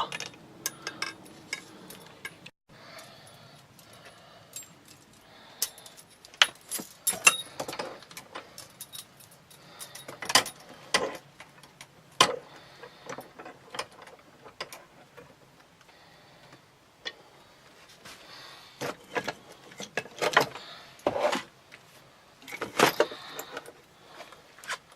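Small metal objects clinking and clattering as they are handled, in irregular clicks and knocks with busier bursts of clatter.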